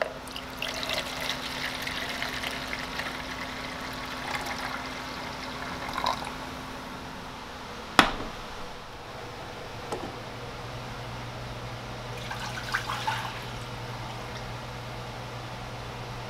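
Water running and splashing into a plastic measuring cup over a low hum. About halfway through comes one sharp clank of a saucepan's lid, followed by a steady low hum and a few short splashes of water.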